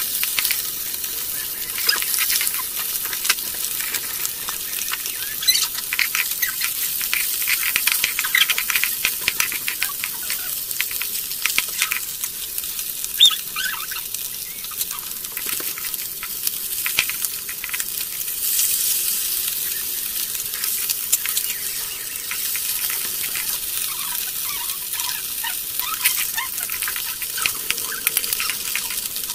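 Fish sizzling as it fries in oil in an iron kadai, with a metal spatula scraping the pan and turning the pieces in frequent sharp clicks.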